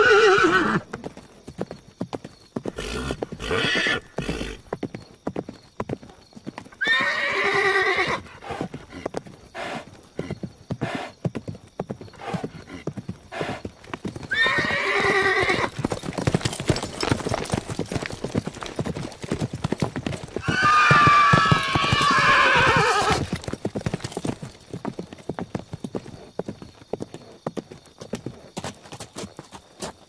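Horses neighing over a continual rapid clip-clop of hoofbeats. Whinnies come at the very start, about a quarter of the way in and near the middle, with a longer, louder one about two-thirds of the way through.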